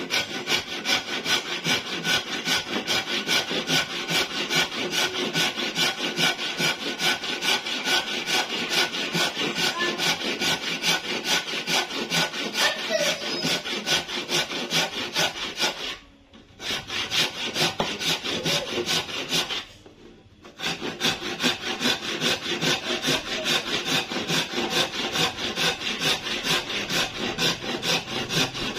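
Hand saw cutting dense hardwood with steady, rhythmic back-and-forth strokes, pausing briefly twice, about 16 and 20 seconds in.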